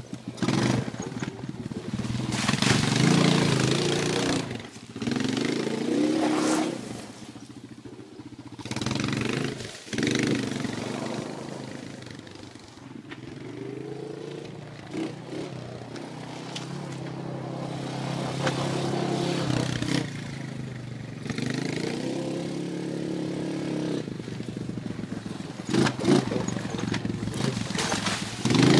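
Honda Recon ATV's single-cylinder four-stroke engine revving up and down again and again as it is ridden, its pitch rising and falling, with loud scraping stretches mixed in.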